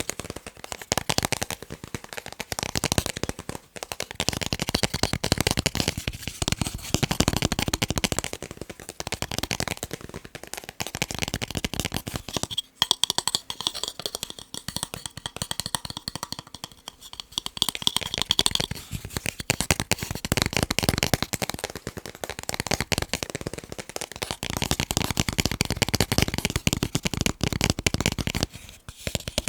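Fast tapping on picture frames: a dense, rapid run of small clicks and taps, softer for a few seconds in the middle.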